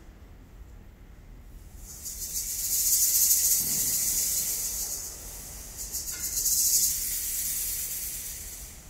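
Concert band in a quiet effects passage: a soft hissing, rustling sound swells up about two seconds in, eases off, swells again around six to seven seconds and then dies away, with hardly any pitched notes under it.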